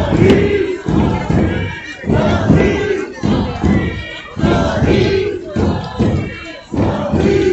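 A group of voices calling out together in repeated, rhythmic chant-like phrases, about one a second.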